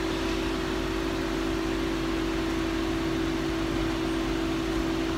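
A steady mechanical hum: one constant low tone over an even hiss, unchanging throughout.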